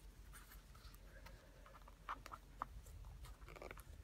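Faint scratching and light tapping of a rose petal on a hand-held applicator being rubbed and dabbed against paper, with a couple of slightly sharper ticks a little after two seconds in.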